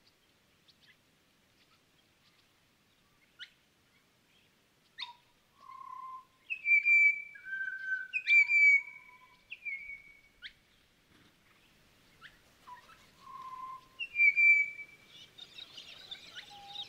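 Recorded forest birdsong: quick sweeping notes and short clear whistles from several birds, with a busier chorus of chirps near the end.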